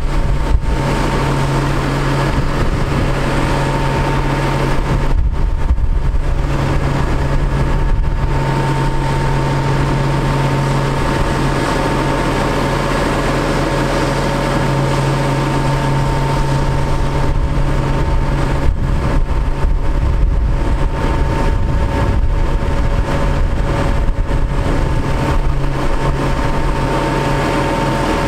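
A 2004 Freightliner FL80's Cummins ISC diesel runs steadily while the hydraulic hoist raises the dump body. A steady hum and whine sets in just after the start and holds unchanged.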